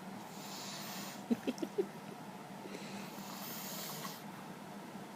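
A sleeping man breathing noisily in snoring breaths: two long hissing breaths, each a second or so, with a few quick little snorts between them.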